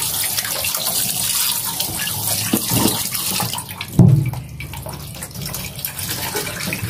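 Kitchen tap running into a plastic bowl of raw pork pieces in a stainless steel sink while hands rub the meat in the water. The running water stops a little past halfway. A thump about four seconds in is followed by quieter splashing as the meat is worked in the bowl.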